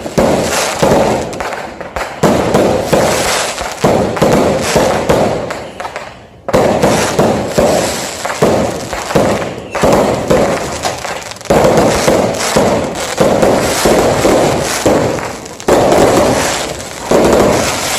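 New Year fireworks going off in a dense barrage: loud bursts one after another every second or two, each trailing off in crackling.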